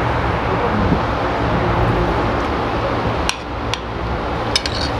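A metal spoon clinking against a plate a few times: two single clinks a little past three seconds in and a quick cluster of clinks near the end, over a steady background hum.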